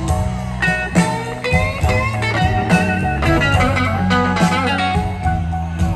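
A live slow-blues band with an electric guitar playing lead lines with string bends over bass and drums, heard from the audience.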